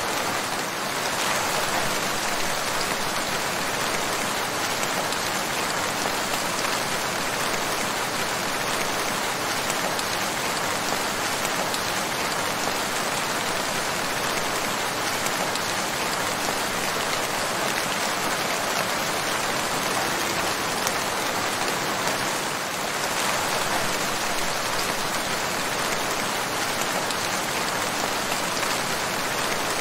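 Steady rain falling, an even, unbroken hiss of many drops with no let-up.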